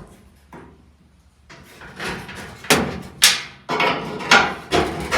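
A wrench working a metal fuel-line fitting tight on a new steel gas tank: after a short pause, a series of sharp metallic knocks and clanks about every half second.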